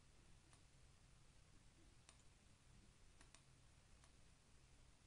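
Near silence with a few faint computer mouse clicks, about five in all, two of them in quick succession about three seconds in.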